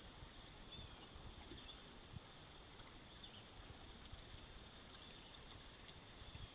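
Near silence: faint outdoor ambience with a steady, thin high-pitched hum and a few soft low knocks.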